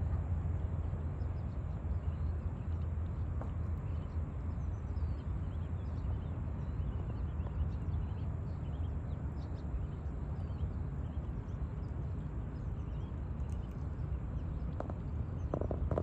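Low wind rumble on the microphone throughout, with the faint high peeping of mallard ducklings scattered over it and a few short quacks from the hen mallard near the end.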